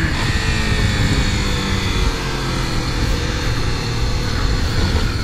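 Motorcycle engine running at low road speed, heard from the rider's seat with wind rushing over the microphone. The engine note eases down slightly over the first couple of seconds, then holds steady.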